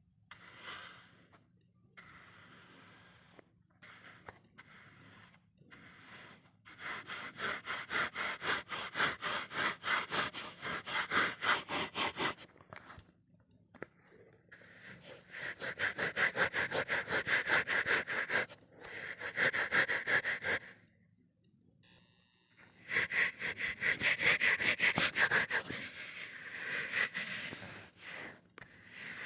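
Kinetic sand being worked, with rapid, even runs of short gritty strokes, several a second. It comes in three long runs of about five seconds each, with a few scattered strokes between.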